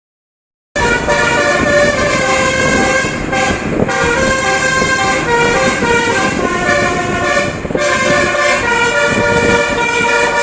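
Bus 'telolet' multi-tone air horn (Basuri type) playing a melody of held notes that step from pitch to pitch, starting abruptly about a second in and sounding almost without pause, with a steady hiss underneath.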